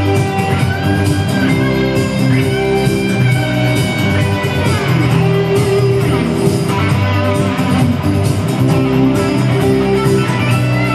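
Instrumental break of a rock song played by a band with guitar to the fore, with no singing.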